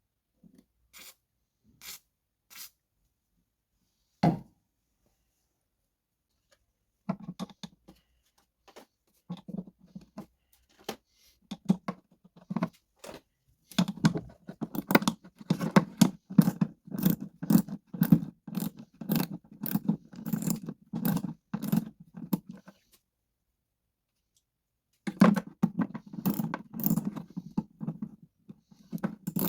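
Rapid back-and-forth scraping strokes, about two or three a second, in a long run with a short pause near the end. These are most likely rust and dirt being scrubbed off garden shears by hand. A few separate clicks come before the strokes begin.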